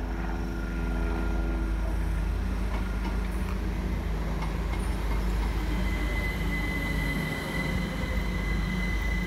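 Great Northern Class 387 electric train at the platform, a steady low rumble with a high steady whine that comes in about six seconds in.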